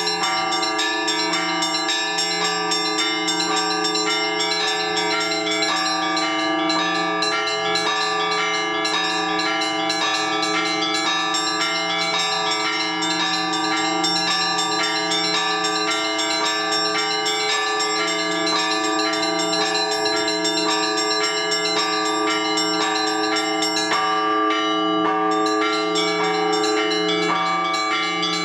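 Orthodox church bells rung by hand, many bells of different pitches struck one after another and ringing over each other in a continuous peal. This is the ringing that calls the faithful to the all-night vigil.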